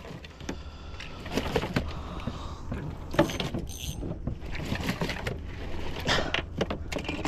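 Scattered knocks and clatter of fishing gear (rods, landing-net handle) being handled against a small fibreglass boat, over a steady low rumble.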